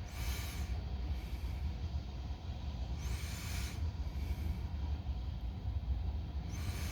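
Freight train rolling slowly past: a steady low rumble of wheels on rail, with a hissing, scraping noise rising three times, about every three seconds. The noise is taken for something dragging under a car, such as a pipe, or for bad track.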